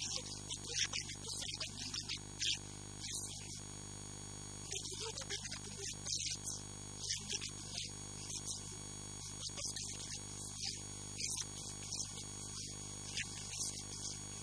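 Steady electrical mains hum in the recording, with a man's voice talking into a handheld microphone over it in short, irregular bursts.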